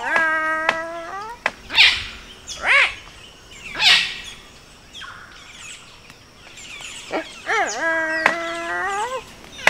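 Palm cockatoo calls mimicked by a man: two long whistled calls held steady and rising in pitch at the end, one at the start and one near the end, with three short, harsh screeches between them.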